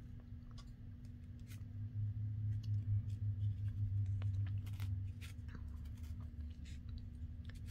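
Faint rustling and scattered small clicks of hands wrapping twine around a paper coin-envelope journal, over a steady low hum, with a low rumble of handling from about two to five seconds in.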